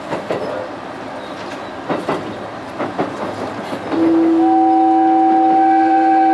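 Train rolling slowly over the rails, wheels clicking over a few rail joints, then the train horn sounds one long steady blast of about two and a half seconds, much louder than the running noise, starting about four seconds in.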